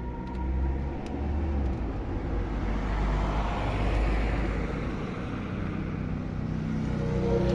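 Volkswagen Golf 4's 1.9 TDI four-cylinder diesel engine running steadily, a low rumble with a noisy overlay that swells a little midway.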